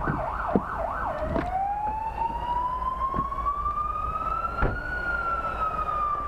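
Fire engine's electronic siren changing from a fast yelp to a slow wail: rapid up-and-down sweeps for about the first second, then one long tone rising slowly and starting to fall near the end. A sharp knock about four and a half seconds in.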